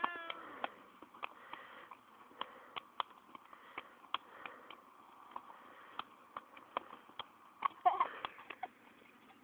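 Scattered sharp slaps and taps of hands on bodies and clothing during a play-fight slapping game, coming irregularly. There is a brief high squeal at the very start and short giggling sounds about eight seconds in.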